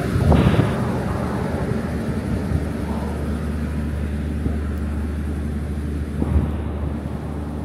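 Steady low mechanical rumble from The Ghan passenger train beside the platform. A short louder burst of noise comes about half a second in, and a brief thump a little after 6 s.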